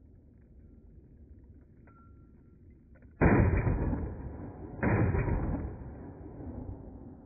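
Two pistol shots about a second and a half apart, each followed by a long trailing echo.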